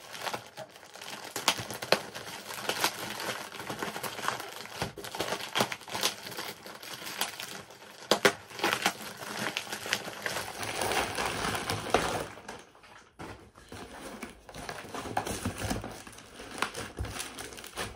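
Plastic packaging crinkling and crackling with sharp snaps as a plastic mailing bag is torn open and plastic wrap is pulled off a box.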